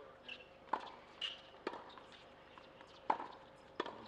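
Tennis ball bounced on a hard court before a serve: about five sharp, short knocks at uneven intervals.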